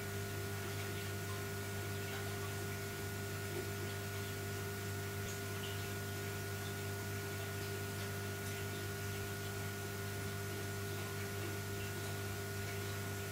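Steady low hum with a few fainter steady higher tones over faint hiss, unchanging throughout.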